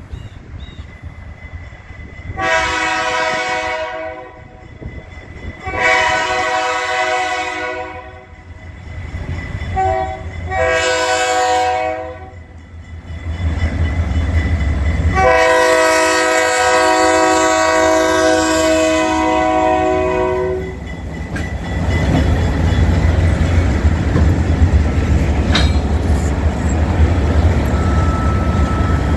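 ALCO diesel locomotive air horn sounding for the grade crossing in five blasts: two long, a short and a medium one, then a final long blast held about five seconds. Then the lead locomotives pass close by with a loud, steady low engine rumble and wheels clacking on the rails.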